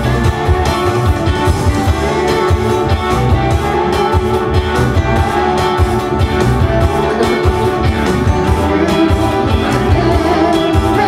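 Music playing loudly with guitar and drums and a steady beat.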